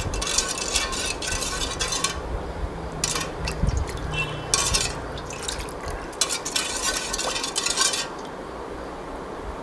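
A utensil stirring sugar syrup and honey in a pan, scraping against the pan in several spells and stopping about eight seconds in.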